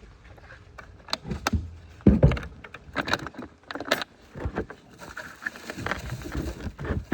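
Close handling noise: irregular knocks, thumps and rattles of things being moved right by the phone propped on a side-by-side, as twine is dug out from under it. The noise starts about two seconds in.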